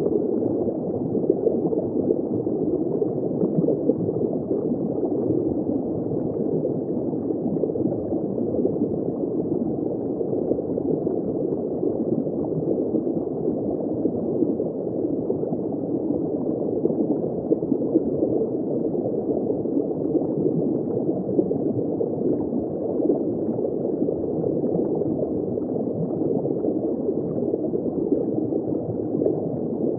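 Steady underwater bubbling and gurgling of water heard from just below the surface: a muffled, continuous wash with small bubbles popping all through.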